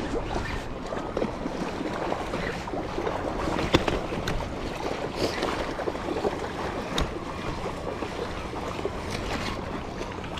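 Wind buffeting the microphone over choppy, lapping water, with a couple of short sharp clicks, one about four seconds in and one near seven seconds.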